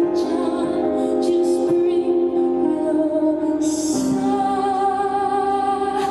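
Slow, soft music with a singing voice holding long notes.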